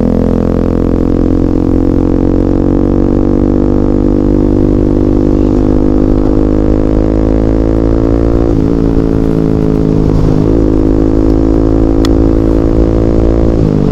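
Bajaj Pulsar NS200's single-cylinder engine running loud through a full-system Akrapovic exhaust with the dB killer removed, cruising with its note slowly rising. The note dips briefly about two-thirds of the way through and drops sharply right at the end.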